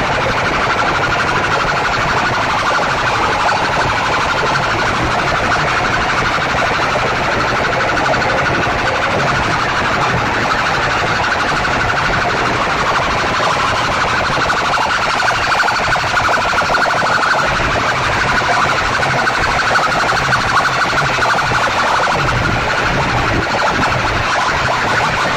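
Wall of DJ horn loudspeakers blasting a harsh, distorted, siren-like sound at full volume, holding steady with no breaks.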